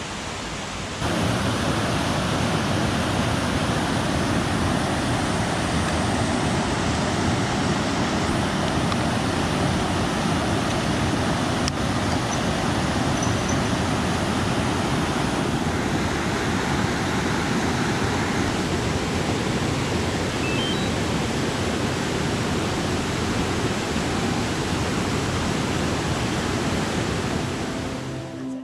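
Waterfall and river water pouring, a steady rush of noise that steps up in loudness about a second in.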